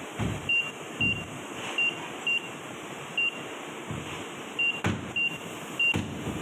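A short high electronic beep repeating at uneven intervals, about ten times, over a steady industrial hum, with two sharp knocks near the end.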